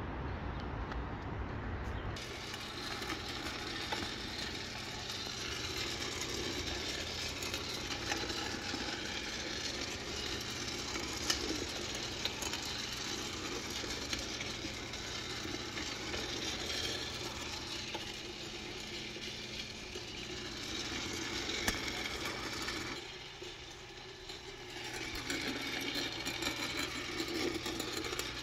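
Home drum coffee roaster running mid-roast: a steady motor hum with a continuous rattle, briefly quieter near the end.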